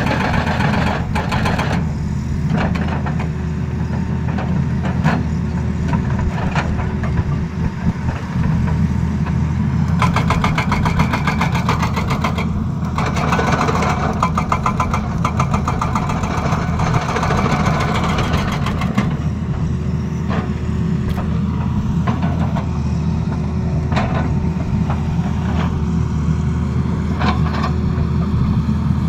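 Tata Hitachi Zaxis crawler excavator's diesel engine running steadily, with its hydraulic rock breaker hammering rock in rapid repeated strikes, densest for a few seconds about ten seconds in. Scattered single knocks of steel on stone are heard in between.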